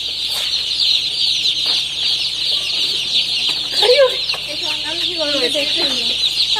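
A large flock of day-old chicks peeping continuously, a dense chorus of many overlapping high, short cheeps. Muffled human voices join in faintly from about four seconds in.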